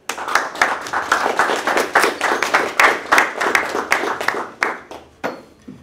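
Audience applauding, individual claps distinct, dying away about five seconds in.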